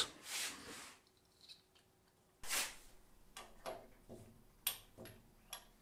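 Light handling noise of a small steel clutch plunger and its coil spring being fitted into a bore of a bronze clutch sleeve. A soft rustle about two and a half seconds in is followed by a string of faint, short metallic clicks.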